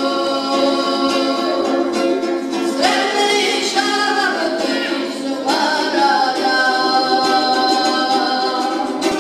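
A young boy singing into a microphone, strumming along on a panduri (Georgian three-string lute); he holds long notes that step up in pitch twice.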